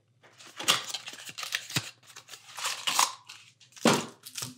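Trading card packaging being opened by hand: a run of irregular crinkling, scraping and tearing noises, loudest about two thirds of a second, three seconds and four seconds in.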